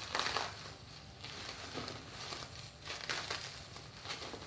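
Crinkling rustle of packaging being handled, in a few short bursts.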